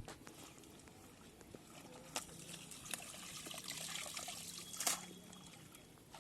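Shallow water trickling and dribbling, with a few brief sharp sounds about two, three and five seconds in.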